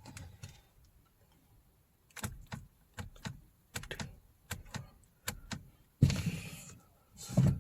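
Headlight stalk of a 2020 Ford Ranger being pulled and released to flash the high beams five times, each flash a pair of sharp plastic clicks, as a step of the Battery Monitoring System reset. A longer rustling noise follows near the end.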